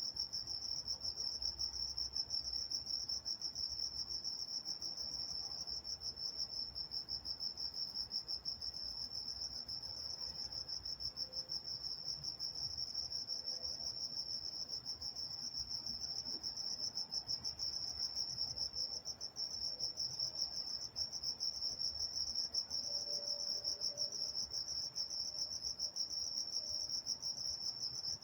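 Night-time chorus of crickets: a steady, high-pitched chirping made of rapid pulses that runs on without a break.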